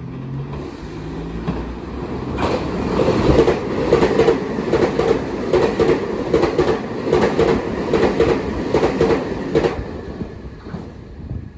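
Meitetsu 2000-series μSKY eight-car train passing through a station without stopping. It rises as it approaches, then gives a long run of rhythmic wheel clacks over the rail joints as the cars go by, with a thin high whine above, and fades as it leaves.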